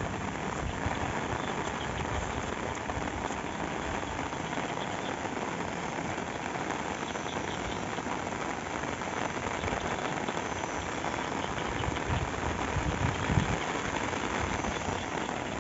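Steady rain falling in an even hiss, with a few low thumps about three-quarters of the way through.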